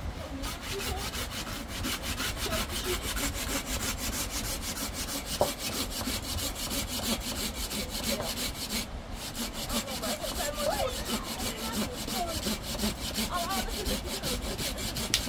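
Hand saw cutting through wood in steady, even back-and-forth strokes, with a short pause about nine seconds in.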